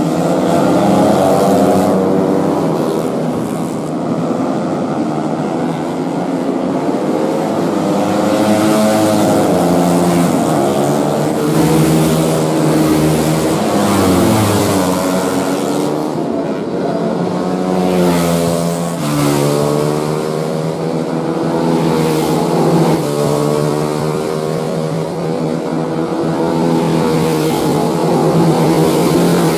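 Several 150cc four-stroke underbone racing motorcycles revving hard as they pass at racing speed, their engine pitch rising and falling again and again through the gears.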